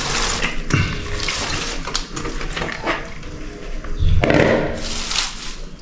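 Shredded cabbage poured from a plastic bowl into a metal pot of broth and potatoes: the leaves rustle and crackle and splash into the liquid as they tumble in. A louder thump comes a little after four seconds in.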